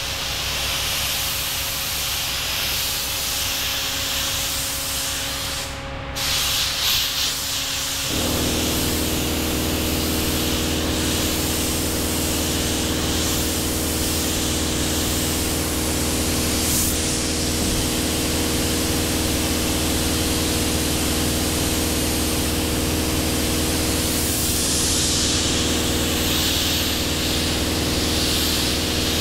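Steady hiss of rushing air, joined about eight seconds in by the steady hum of a machine motor that starts up and keeps running.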